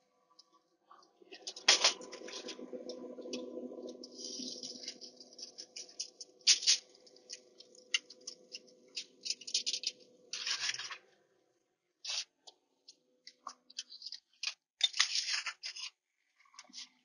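Aluminium foil crinkling and metal tongs clicking as cooked meat is lifted from the smoker onto a foil tray, with a sharp metal clack about two seconds in. A low steady hum runs under the first ten seconds or so.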